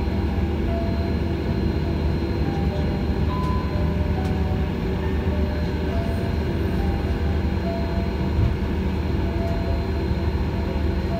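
Airliner cabin noise during taxi: the engines at low taxi power give a steady low rumble, with a thin steady high tone over it.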